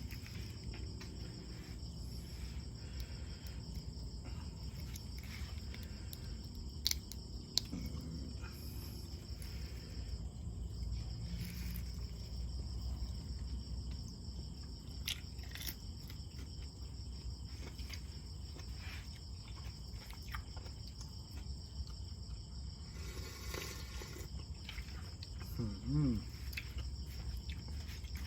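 Steady high trilling of insects in the background, with a few sharp clicks and quiet eating sounds, and a brief hum-like vocal sound near the end.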